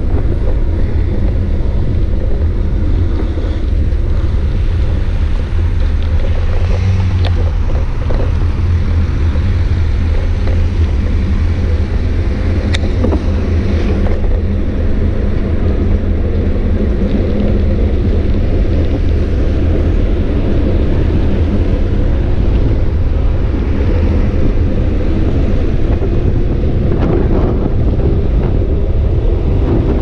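Wind buffeting a GoPro's microphone on a moving bicycle: a loud, steady rumble, with road and traffic noise underneath.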